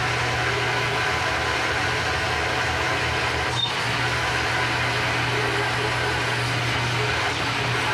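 Bandsaw running steadily, its motor humming as the blade cuts through a steel bar.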